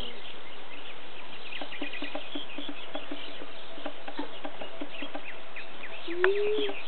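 Countryside ambience: a steady chorus of many short, high chirps, with one brief low call rising and falling about six seconds in.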